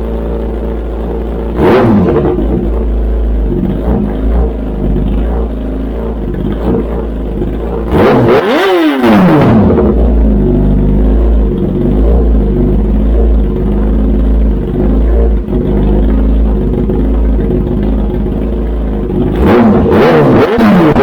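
2020 Kawasaki ZX10R's inline-four through an SC Project full titanium exhaust, idling between throttle blips: a short blip about two seconds in, a hard rev about eight seconds in with the revs falling quickly back to idle, and another rev near the end.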